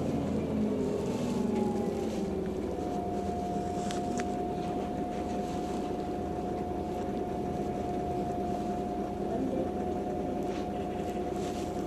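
Heuliez GX 137L city bus under way, heard from inside the cabin: its engine and drivetrain drone steadily. A whine slides down in pitch, then holds at one steady pitch from about three seconds in.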